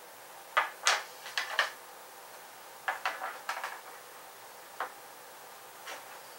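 Light clicks and taps of a wooden dowel arrow shaft and a small glue bottle being handled and set down on a tabletop: a quick cluster about half a second in, another about three seconds in, and two single taps near the end.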